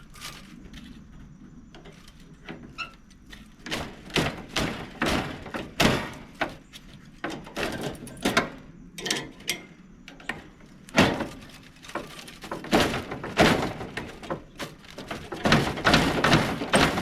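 Irregular thunks and knocks of sheet metal and tubing being worked by hand as the coil is pulled out of a Carrier PTAC unit, sparse at first, then coming thick and fast from about four seconds in.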